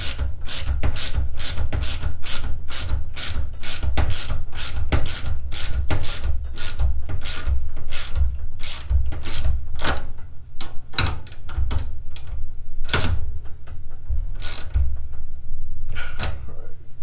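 Ratchet wrench clicking rapidly and evenly, about three to four clicks a second, as bolts are run down. After about nine seconds the clicks slow to an irregular few. A low rumble sits under the clicks throughout.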